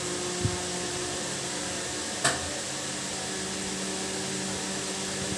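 Steady mechanical hum and hiss, like a running room appliance, with a single sharp click a little over two seconds in.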